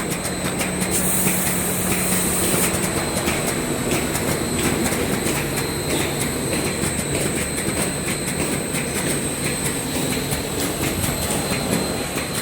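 Wide belt sander running with its 180-grit sanding head while a melamine-faced panel feeds through on the conveyor: a steady machine noise with a dense, fast rattle and a steady hum. A stronger high hiss comes in about a second in and stops about three seconds in.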